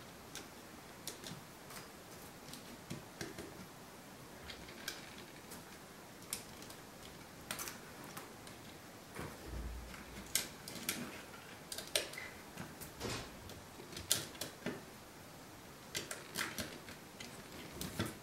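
Plastic Lego Technic parts being handled and pressed together by hand: irregular sharp clicks and snaps, busier in the second half. There is one short dull bump about halfway through.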